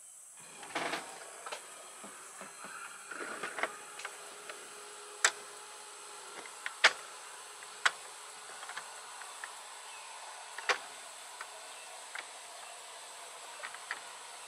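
RV slide-out retracting on its electric drive: a faint steady motor hum with a handful of sharp clicks and ticks, the loudest about five, seven, eight and eleven seconds in. It runs smoothly, without stuttering or clunking, on its repaired slide-topper brackets.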